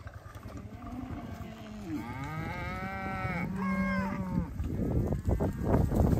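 A beef cow moos, one long call that starts about a second in, bends in pitch and breaks briefly before ending at around four and a half seconds. After it, the herd's hooves tramp over the frosty ground as the cattle walk past, growing louder near the end.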